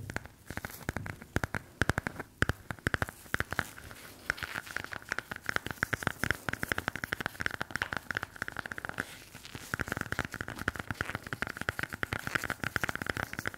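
An ASMR trigger handled close to the microphone: a dense, irregular stream of crinkling, crackling clicks.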